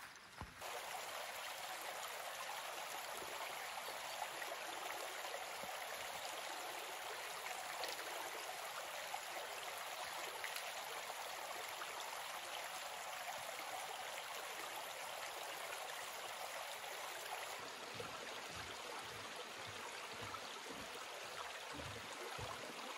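Shallow rocky stream running over stones, a steady rush of water. A few soft low thumps come in over the last five seconds.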